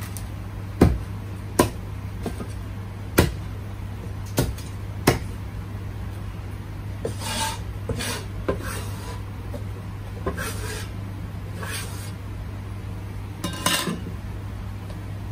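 Kitchen clatter: five sharp knocks in the first five seconds, then bouts of scraping and clinking of utensils and dishes, over a steady low hum.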